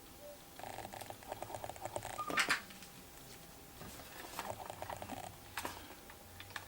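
Light clicking and tapping from hands handling small objects, with a sharper click about two and a half seconds in and another a little before the end.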